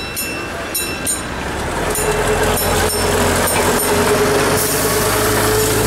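Amusement-park train passing close by, its drive running with a steady low hum and a held tone that grows louder about two seconds in.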